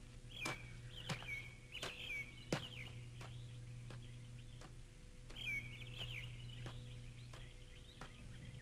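Birds chirping faintly in short, twittering calls, in two spells: one early and one about five seconds in. Sharp clicks come at irregular intervals throughout.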